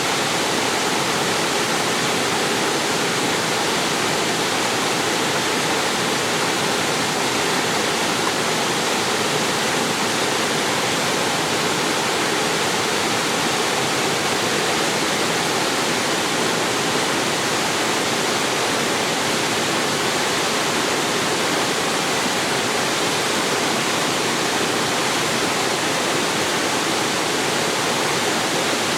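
Waterfall pouring steadily into its pool, a constant loud rush of falling water.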